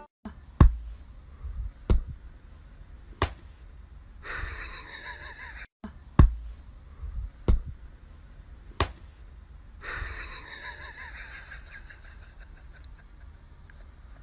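Sharp single thumps, evenly spaced about a second and a quarter apart: three in a row, a short break, then three more, with a faint hiss between them.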